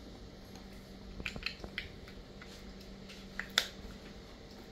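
Light clicks and taps of a plug top, multimeter test leads and small tools being handled on a work table. There is a quick run of faint clicks about a second and a half in and one sharper click later on, over a faint steady hum.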